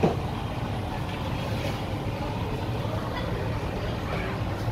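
Steady low background rumble of a shop interior, with faint scattered sounds on top. One sharp knock comes right at the start.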